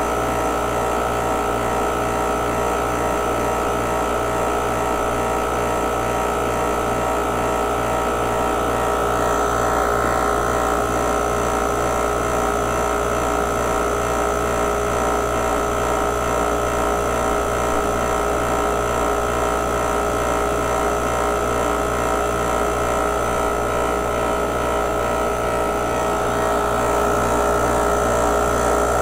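Mastercool 69110 refrigerant recovery machine running steadily, its compressor drawing refrigerant out of the car's AC system: a constant hum made of several steady tones over a regular low throb.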